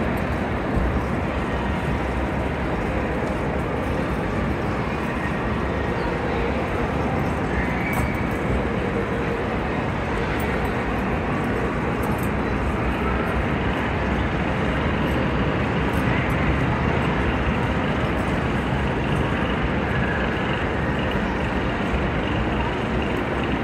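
Steady background din of a large, busy indoor hall: an even wash of noise with faint distant voices in it.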